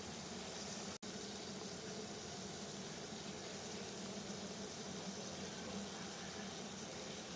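Water boiling steadily, a continuous bubbling hiss, with a split-second dropout about a second in.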